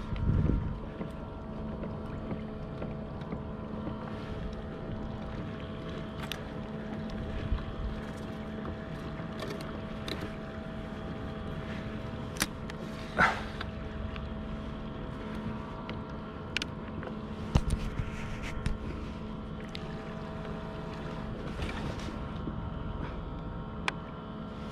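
A steady boat hum with several even tones, and a few sharp knocks and clicks from the kayak, the loudest about halfway through and again a few seconds later.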